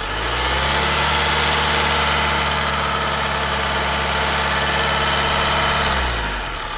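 Car engine idling steadily at a low pitch, fading out near the end.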